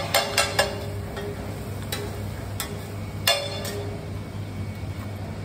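Metal spatula clinking against a flat iron griddle, a quick run of sharp ringing clinks at the start and a few more about two to three and a half seconds in, over a steady low hum, as toast is lifted off the griddle.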